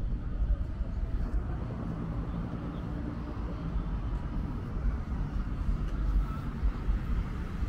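Outdoor city ambience heard while walking: a steady low rumble with uneven gusty peaks.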